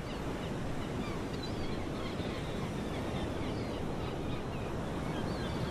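Steady wash of ocean surf breaking on a sandy beach, with small birds chirping here and there.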